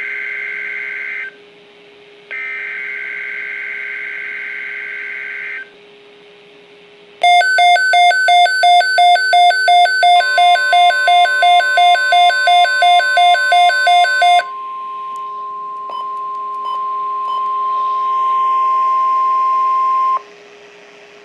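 NOAA Weather Radio emergency alert received on a Midland WR-120 weather radio. It begins with the end of one raspy SAME header data burst and a second burst of about three seconds, the digital code that announces the alert and the areas it covers. Then comes about seven seconds of pulsed electronic beeping, about three beeps a second. About ten seconds in, the steady single-pitched 1050 Hz Weather Radio alert tone joins the beeping, holds alone after it stops, and cuts off about ten seconds later, with a faint low hum underneath.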